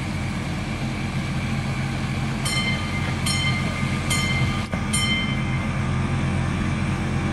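Ride-on miniature train's engine running steadily as the train approaches. About two and a half seconds in come four short high-pitched beeps, evenly spaced under a second apart, sounded from the train as a warning signal.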